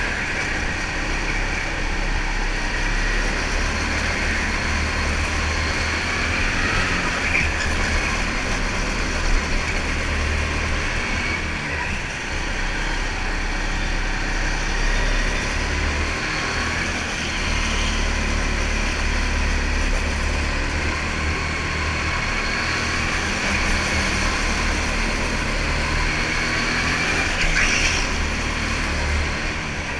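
Indoor go-kart being driven hard around a lap, heard from the driver's seat; its motor runs without a break, pitch rising and falling as it speeds up and slows for the corners.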